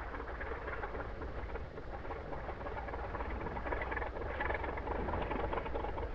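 Moki radial engine of a giant-scale RC Focke-Wulf Fw 190 running at low throttle as the model lands and rolls out on grass, a rapid, uneven firing patter over a steady low rumble.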